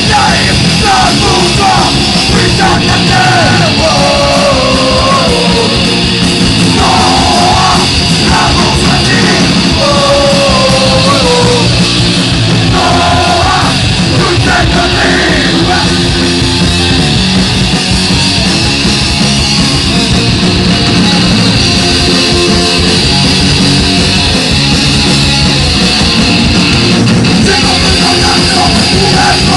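Live punk rock band playing loud and dense, electric guitars and drums, with a shouted vocal through roughly the first half that comes back near the end.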